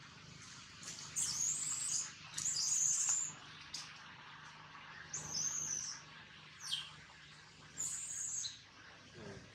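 Birds calling: four short bursts of high, warbling song, with a few brief chirps in between.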